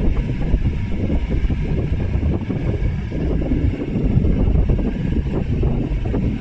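Yanmar B22 mini excavator's diesel engine running steadily under work, a dense low rumble, sped up to double speed.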